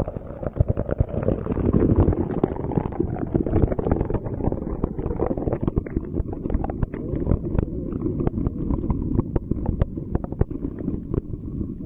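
Muffled underwater rumble and water noise picked up by a submerged smartphone's microphone, with frequent small knocks and clicks throughout.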